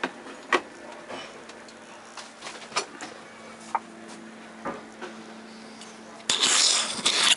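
Handling noise on a handheld camera: scattered clicks and knocks, then about a second of loud rubbing on the microphone near the end, over a faint steady low hum.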